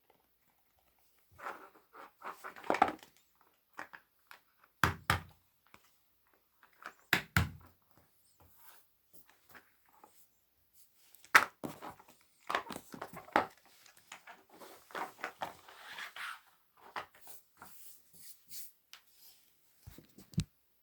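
Handling noises from silicone pop-it fidget toys: scattered soft rustling and crinkling, broken by a few sharper clicks and knocks.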